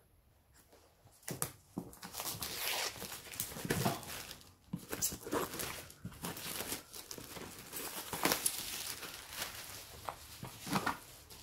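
Plastic shrink-wrap being slit and pulled off a board-game box, crinkling and tearing in a run of short rustles that starts about a second in.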